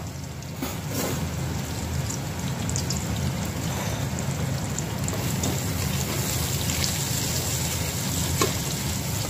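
Sliced red onion sizzling as it fries in hot oil in a steel pot, a steady crackling hiss. Near the end a wooden spoon stirs it, with a light knock or two against the pot.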